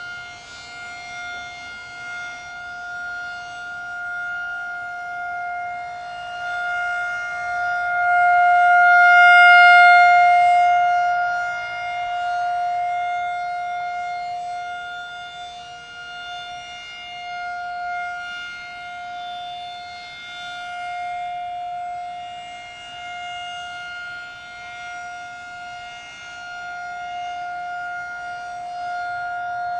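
Federal Signal 2001-SRN electronic warning siren sounding its steady Alert tone: one unchanging pitch with an overtone. It swells and fades as the rotating horn sweeps around, loudest about a third of the way in.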